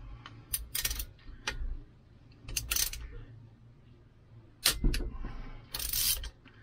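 Hand wrench clicking and scraping on steel bolts of a Yanmar marine diesel engine, in a string of short, sharp metallic clicks with pauses between them. The bolts are stuck fast enough to need penetrating oil.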